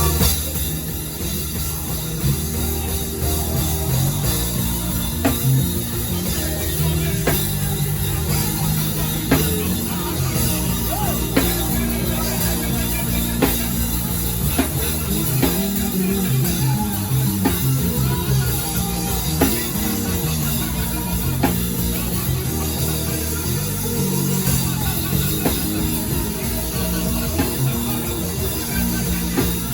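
Live worship band playing instrumental music: drum kit, bass, keyboard and electric guitar, with sustained bass notes and a strike on the beat about every two seconds.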